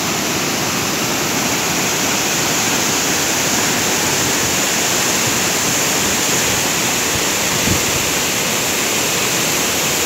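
Waterfall: a large cascade of water pouring down a rock face, a loud, steady rushing.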